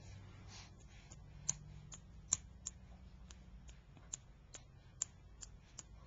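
A baby's small hands clapping: a string of about ten soft claps, two to three a second, starting about a second and a half in.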